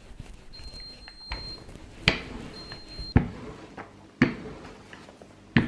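Wooden rolling pin rolling out shortcrust dough on a floured wooden worktop, with four sharp knocks of wood on wood about a second apart. A faint thin high tone sounds briefly twice early on.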